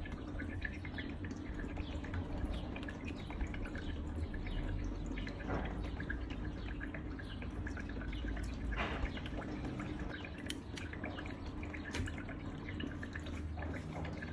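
Small decorative tabletop water fountain trickling, with a steady patter of drips and splashes over a low hum.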